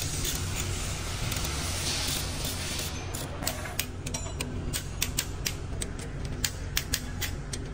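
Hand socket ratchet clicking in quick runs as it works bolts on the side of a Komatsu SA6D125 diesel engine block. The clicks start about three seconds in, over a steady workshop hum, with a hiss before them.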